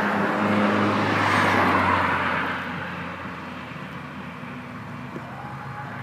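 A motor vehicle passing by: its noise swells over the first second and a half and fades away by about three seconds in, leaving a low steady hum.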